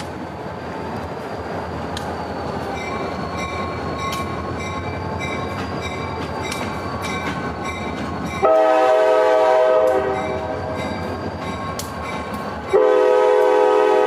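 Approaching diesel freight locomotive with a steady low rumble, sounding its air horn for the grade crossing: one long blast about eight and a half seconds in and a second starting near the end. Through it a crossing bell rings with evenly repeated strokes.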